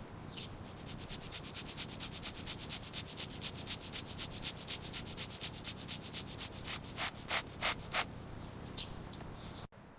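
Quick, even back-and-forth rubbing strokes on a surface, several a second, as in hand sanding or scrubbing during bodywork. A few louder, heavier strokes come near the end.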